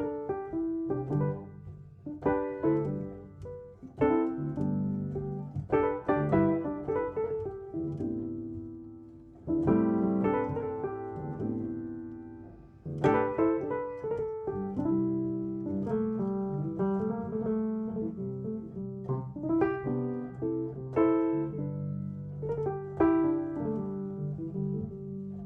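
Background music: a piano playing chords over a low bass line, each note struck and fading.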